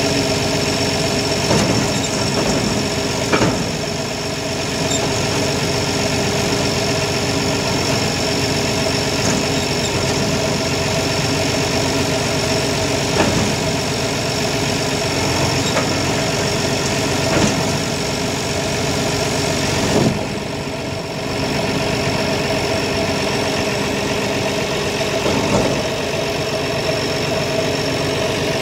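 An engine idling steadily, with a steady high whine over it and a few light knocks scattered through.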